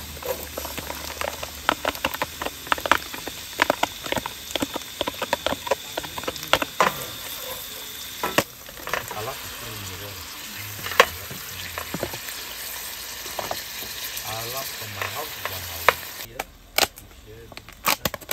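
Chopped garlic and shallots sizzling in hot oil in a stainless steel pan on a portable gas stove, while a wooden spatula stirs them with many sharp clicks and scrapes against the pan. Raw chicken pieces go in about halfway through, and the sizzle drops near the end.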